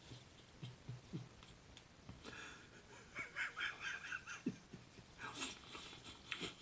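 A man laughing in breathy, wheezing giggles with short gasps. The laugh rises into a higher-pitched wheezy stretch from about two to four seconds in.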